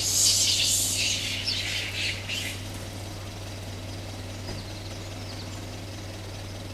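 High-pitched chirping and squawking animal calls, loud over the first two and a half seconds and then faint, over a steady low hum.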